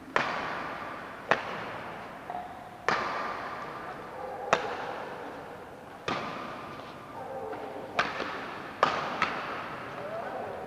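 Badminton rackets striking a shuttlecock in a rally: sharp smacks roughly every second and a half, ringing in a large hall, with a quicker run of hits about eight seconds in.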